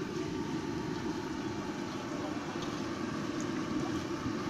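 Steady roar of a gas burner under a large iron kadhai of samosas deep-frying in oil, with a fainter hiss of frying and a few small pops.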